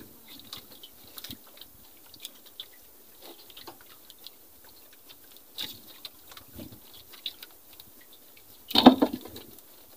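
Sea water lapping and trickling against the hull of a small wooden outrigger boat, with light scattered knocks and a louder splash near the end.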